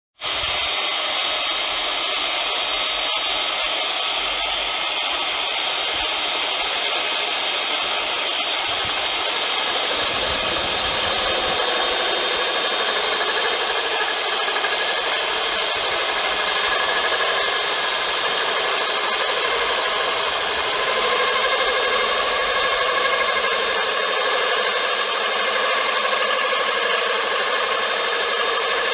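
Power tool running a Pulvex diamond core drill bit, grinding a hole into vitrified porcelain paving: a steady high whine over a grinding hiss, its pitch shifting a little as the cut goes on.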